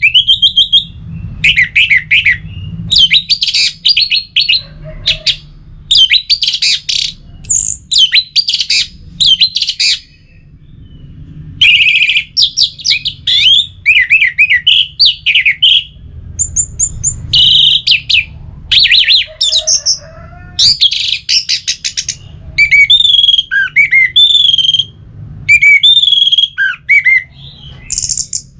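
Orange-headed thrush singing: a long run of quick, varied whistled and warbled phrases, one after another, with a short pause about ten seconds in.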